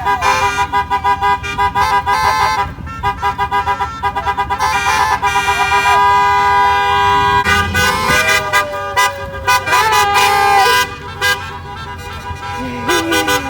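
Several car horns honking together at different pitches. Short, rapid repeated toots give way to longer held blasts. This is a celebratory honk-out, cars sounding their horns as they drive past in tribute.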